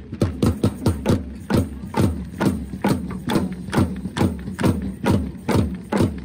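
Rhythmic drumming: sharp drum strikes about four a second, each with a short falling low boom.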